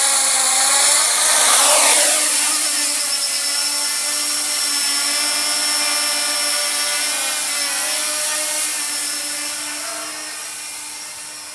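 HobbyKing Dart 400 quadcopter's four electric motors spinning 9x5 three-blade props: they spin up and lift it off, reaching their loudest about two seconds in, then hold a steady multi-tone whine as it hovers. The whine grows fainter over the last couple of seconds as it climbs away.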